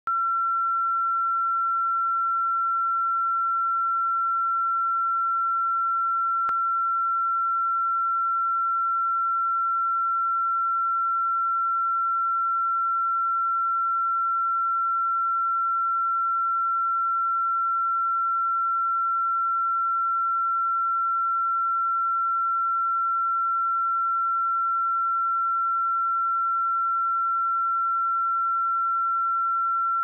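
A pure 1355 Hz sine-wave test tone: one steady, unchanging pitch at a constant level.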